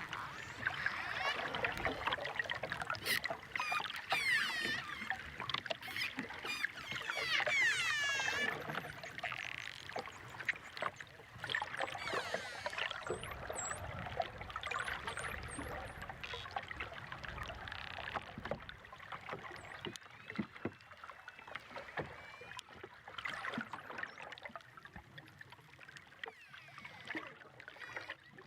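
Dolphins whistling and clicking underwater: many rising and falling whistles, some in quick repeated series, over a dense run of clicks. The sound thins out and grows quieter in the last third.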